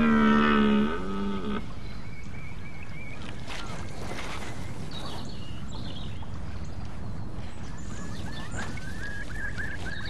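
A red deer stag roars once at the start, a long deep bellow falling slightly in pitch and lasting about a second and a half. It is followed by a steady rough background with scattered knocks and rustles as the stag rubs its antlers in mud and vegetation.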